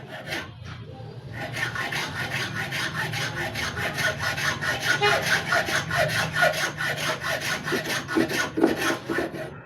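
A small block of carbon being sawn by hand, in quick, even back-and-forth strokes that start about a second in. A replacement motor carbon brush is being cut out of a bigger carbon brush because no brush of the exact size is at hand.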